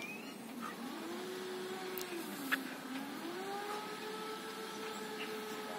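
A motor running with a steady whine, its pitch dipping about two and a half seconds in, then rising and holding; a single sharp click sounds at the dip.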